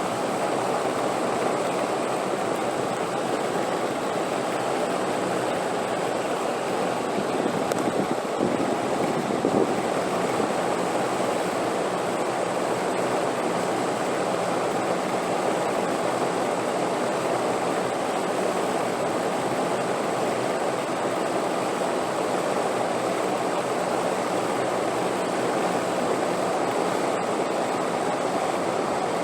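Steady wind, a continuous even rushing that swells slightly about a third of the way in.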